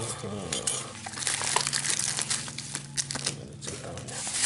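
Black plastic parcel wrapping crinkling and a cardboard product box rustling and knocking as they are handled and pulled apart, with small clicks and clinks throughout over a steady low hum.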